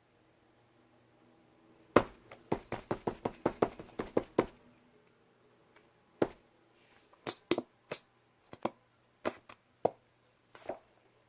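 Pink slime squished and kneaded in the hands, making sharp clicking and popping noises: a quick run of about a dozen pops about two seconds in, then scattered single pops. The slime is still too stiff and needs more lotion worked in.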